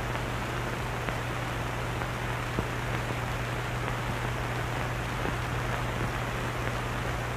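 Steady hiss with a low hum underneath: the background noise of an old film soundtrack between narrated lines, with a single faint click about two and a half seconds in.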